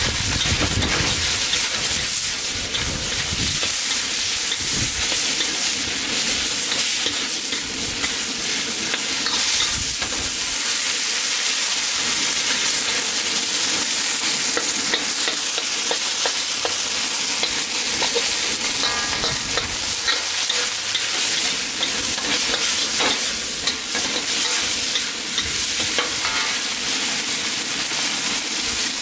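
Marinated chicken pieces sizzling in a hot seasoned wok, a steady hiss, while a metal wok spatula scrapes and clinks against the wok as it stirs them.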